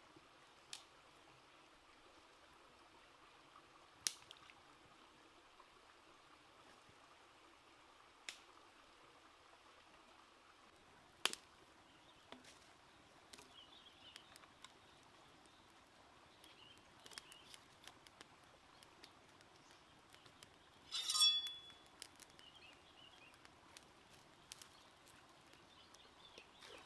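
Faint flow of a shallow stream, with scattered sharp pops and small ticks from a wood fire crackling. About three-quarters of the way through comes one louder, brief rattle with a thin whistle-like tone.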